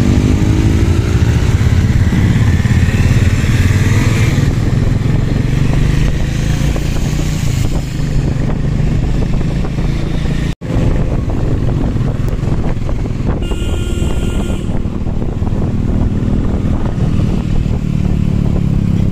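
Motorcycle engine running loudly and steadily, its pitch rising for a moment about two to four seconds in. The sound cuts out for a split second about ten and a half seconds in, then resumes.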